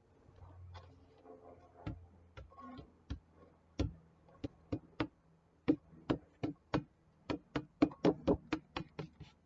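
A run of sharp knocks from an almost-empty bottle of slime ingredient being worked to get the last of it out. The bottle is used up. The knocks are scattered at first and then come quicker, about three or four a second, in the second half.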